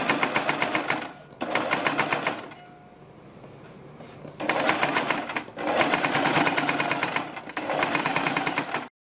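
Electric household sewing machine stitching a folded fabric strip, rapid even needle strokes. It runs in short spells, stopping briefly between them and for about two seconds near the middle.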